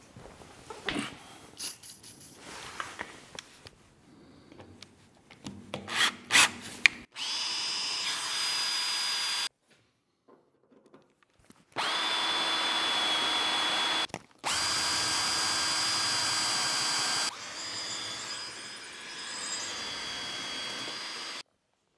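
Cordless drill with a cobalt bit drilling out stainless steel rivets in a tank's thin stainless cladding. It runs in three loud bursts of two to three seconds each with a steady high whine, then a quieter, rougher run as the bit works through, cutting off near the end. A few knocks and clatters come before the first burst.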